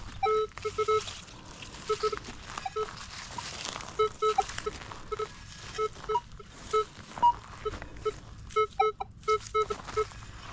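Metal detector beeping as the search coil is swept over the ground: a long irregular run of short low beeps, with an occasional single higher beep.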